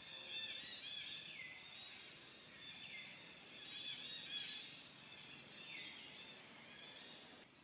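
Quiet outdoor ambience with small birds chirping high and thin. A falling call comes back about every second and a half and fades out near the end.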